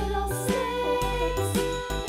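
Cheerful children's background music, a nursery-rhyme style tune over a plodding bass line.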